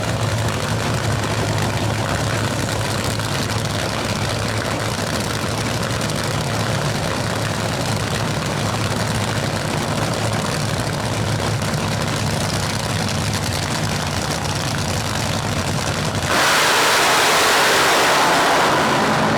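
Two supercharged nitromethane drag-racing engines idling with a heavy, steady rumble. About three-quarters of the way through they suddenly go to full throttle for the launch, a much louder roar that holds for a few seconds.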